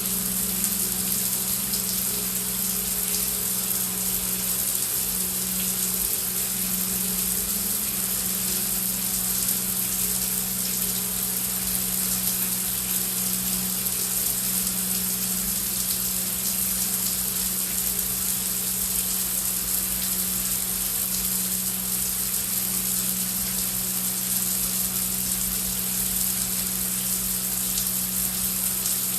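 Heavy rain falling as a steady, dense hiss, over a steady low drone.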